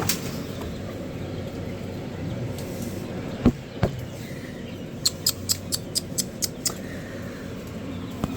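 A quick run of about eight short, high peeps from newly hatched chicks, after two dull thumps about three and a half seconds in, all over a steady low hum.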